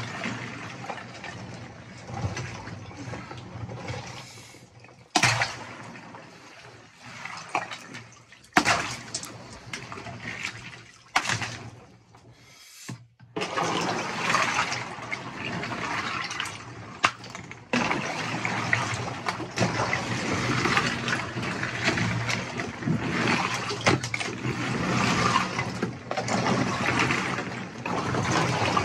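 Ice chunks and water sloshing and churning in a chest-freezer ice bath as it is stirred by hand, with a few sharp knocks of ice being struck. The churning grows busier and louder about halfway through.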